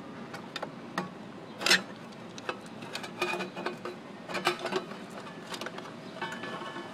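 Irregular small clicks and knocks of hands working loose the fan cable inside an opened computer power supply, with one louder knock about two seconds in.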